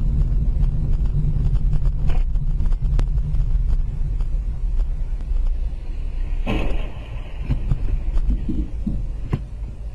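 Low, steady rumble of a car driving, with a few sharp clicks and a short burst of noise about six and a half seconds in.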